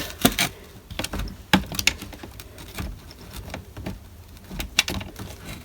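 Scattered small clicks and scrapes of a screwdriver prying at a plastic button housing, the sharpest click about a second and a half in.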